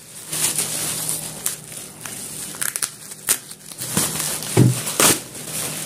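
Plastic bubble wrap crinkling and rustling as hands pull it off a book. There are scattered sharp crackles and two louder rustles near the end.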